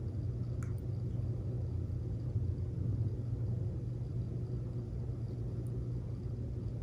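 Steady low hum of background noise, with one faint click a little over half a second in.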